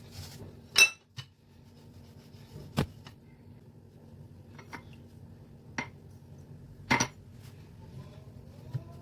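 Kitchen utensils knocking and clinking against dishes or pans: about five separate sharp strikes, the loudest just under a second in and about seven seconds in, each ringing briefly.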